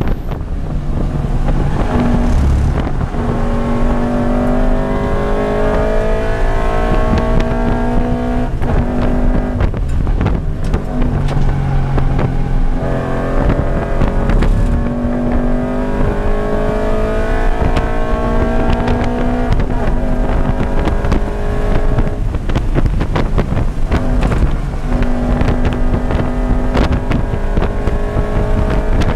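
2013 Scion FR-S's 2.0-litre flat-four, fitted with an aftermarket header and tune, heard from inside the cabin running hard at high revs on track. Its pitch climbs steadily three times, each climb ending as the pitch falls back when the driver lifts off.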